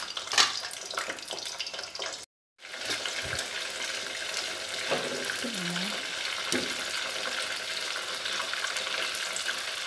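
Prawns sizzling in hot oil in a pot, being fried to half-cook, with light clicks of wooden chopsticks turning them. The sound drops out completely for a moment a little over two seconds in.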